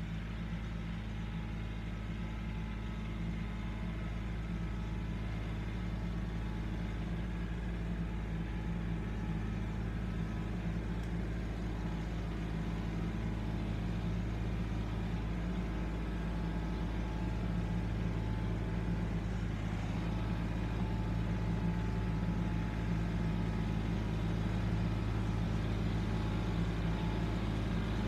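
Tractor engine running steadily as the tractor drives slowly toward the listener, growing gradually louder as it approaches.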